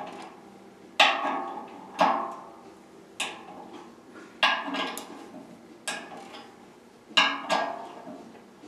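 Click-type torque wrench clicking over as each turbine bearing retainer screw reaches its 60 pound-inch setting: about seven sharp metallic clicks, roughly a second apart and each ringing briefly, with two close together near the end.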